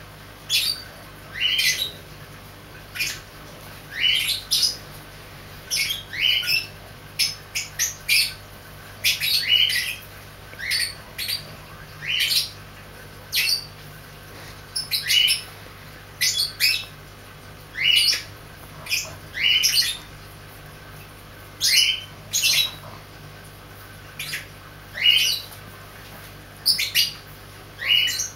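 French bulldog puppy, about five weeks old, squeaking in short high-pitched yips about once a second, some in quick pairs, while mouthing a hand.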